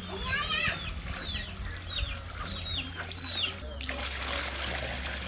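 A bird calls over and over, a short falling call about twice a second, with one louder, higher call near the start. About three and a half seconds in, water starts pouring steadily into a steel wok of broth and vegetables.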